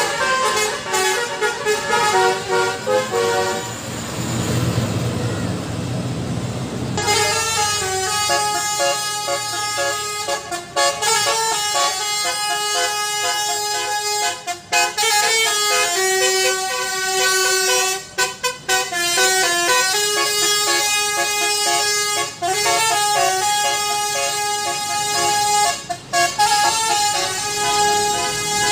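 Indonesian bus 'telolet basuri' musical horn playing a tune of stepped horn notes. Its melody gives way to a few seconds of rushing noise about four seconds in, and a new horn tune starts abruptly at about seven seconds.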